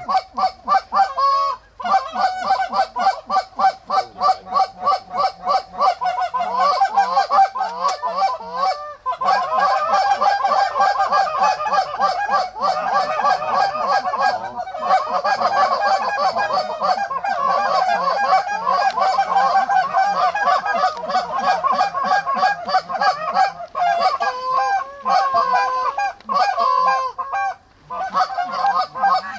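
Goose honking, many rapid calls overlapping almost without pause, with a short break about nine seconds in.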